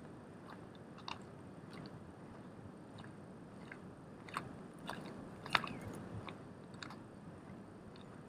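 Footsteps crunching on dry grass stubble and bare earth: faint, irregular crunches at walking pace over a low steady hiss.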